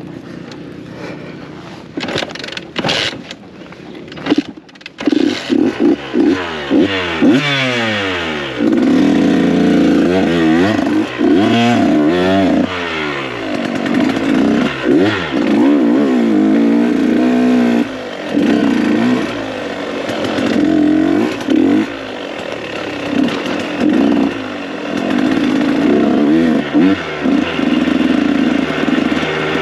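KTM 125 SX two-stroke dirt bike engine. A few knocks and clatter in the first seconds, then from about five seconds in the engine revs hard, rising and falling in pitch with the throttle, and runs on at high revs.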